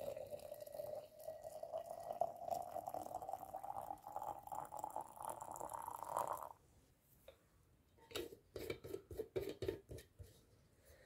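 Water poured from a kettle into a stainless steel vacuum flask, the pitch of the pour rising steadily as the flask fills. The pour stops about six and a half seconds in, followed by a few clicks and scrapes as the flask's stopper is screwed on.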